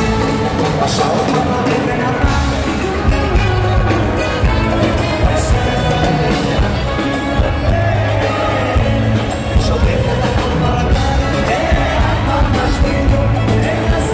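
A male lead singer singing into a microphone over a live band with drums, amplified through an arena sound system.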